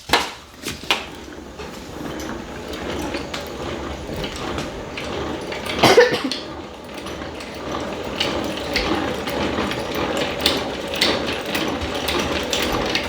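Honey extractor spinning frames of honey, its gears running in a steady mechanical whir with scattered clicks and a sharp knock about six seconds in.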